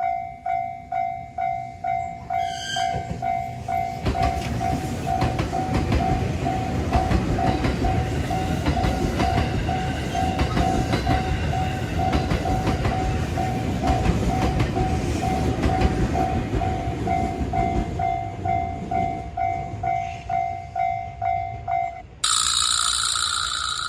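Japanese railroad crossing warning signal ringing its steady "kan-kan", about two strokes a second. A train sounds a short horn blast a few seconds in, then passes with a loud rumble and wheel clatter. The crossing signal stops near the end, and a different bright, high sound starts abruptly.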